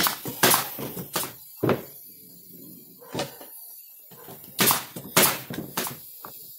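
About ten sharp knocks and clacks, spaced unevenly: a nail gun driving brads into a wooden frame and wooden boards knocking on the workbench as they are handled.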